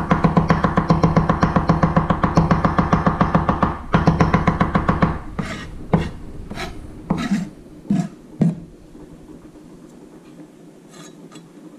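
Chef's knife mincing garlic on a wooden cutting board: a fast, steady run of chopping strokes with a ringing tone for about five seconds, briefly broken near four seconds, then slower single chops spaced out toward the end.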